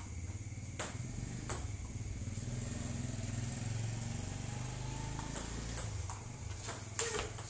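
Table tennis ball clicking off bats and table in a rally: two hits about a second in, then a quick run of six or so hits near the end. A low engine hum runs underneath, swelling in the middle.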